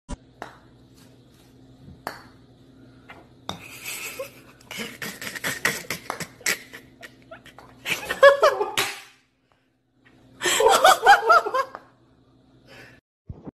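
A person laughing in two bursts, the second a little over a second long, after a run of light clicks.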